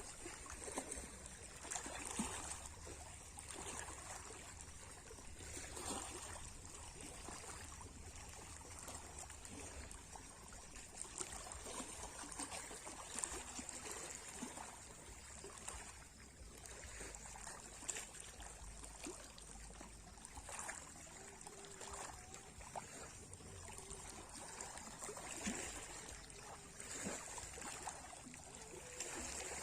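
Small sea waves washing and trickling over the shore, the water sound swelling and falling every few seconds.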